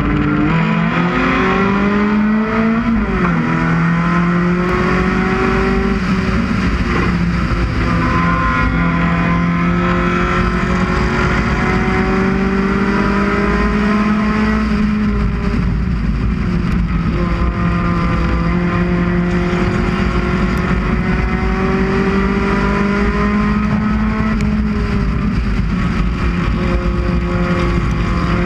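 A UCAR race car's four-cylinder engine running hard at high revs through laps of a short oval, its pitch climbing slowly and then dipping a few times as the throttle comes off, over a steady low rushing noise.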